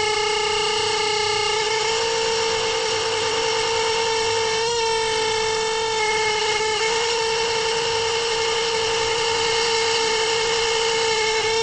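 A loud, sustained pitched tone with strong overtones, held steady at one pitch; it steps up slightly about two seconds in.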